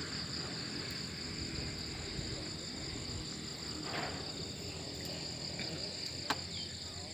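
Steady chorus of insects, a high, even buzzing that does not let up. A brief rustle about four seconds in and a single sharp click a little after six seconds.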